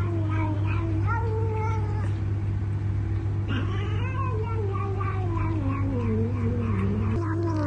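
A cat yowling in a long, drawn-out call that wavers up and down in pitch and sinks lower in the second half, over a steady low hum.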